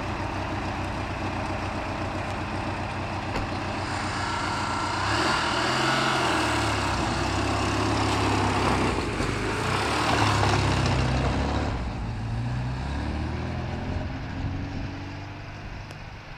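Daihatsu 4x4's engine running, revved up and down several times between about four and twelve seconds in, then settling back and fading.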